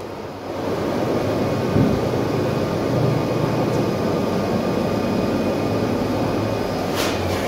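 A machine running steadily, with a short sharp click about seven seconds in.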